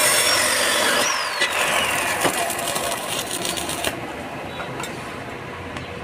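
Electric arc welding on steel: a steady crackle and hiss with a high whine over it, which stops about four seconds in as the arc is broken.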